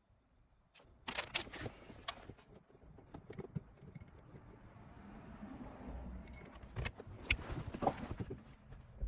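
Irregular metallic clicks, clinks and scraping of hard objects being handled, starting about a second in and busiest near the start and again near the end.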